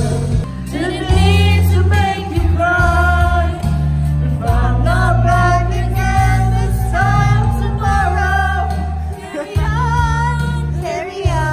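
Karaoke: a man singing into a microphone over a backing track, with held, wavering notes above a steady bass line.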